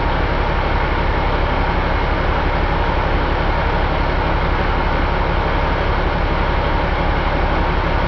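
Caterpillar C15 inline-six diesel engine running steadily at an even speed, with a fast, regular low pulse.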